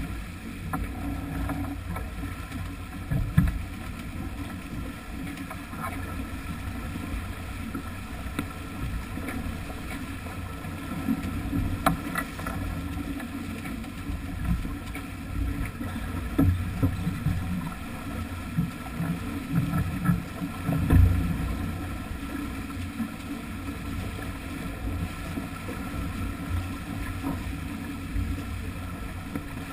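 Sailing yacht under way close-hauled: wind buffeting the microphone over the rush of the bow wave and water along the hull, with a few louder thumps and gusts.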